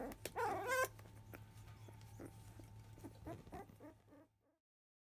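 Fifteen-day-old Labrador retriever puppy giving one short, wavering whimper about half a second in, then faint small rustles from the litter that fade out about four seconds in.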